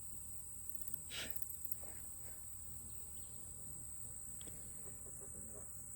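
Outdoor insect chorus making a steady, high-pitched drone, with a brief rustle about a second in.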